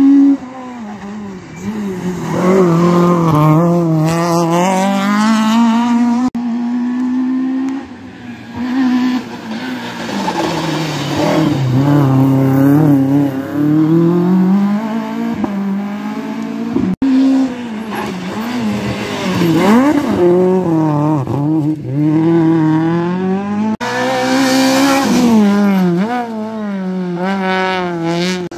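Rally cars driving a tarmac stage at speed: engines revving hard and dropping repeatedly through gear changes and braking, in several separate passes cut together.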